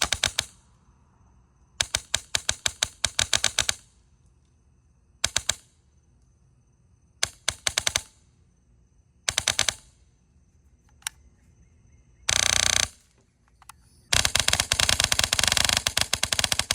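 HPA airsoft rifle with a PolarStar Jack engine firing BBs in strings of rapid shots, several a second, with short pauses between strings; a denser, longer string runs from about two-thirds of the way in to the end. Its tuned trigger lets it shoot very fast on semi.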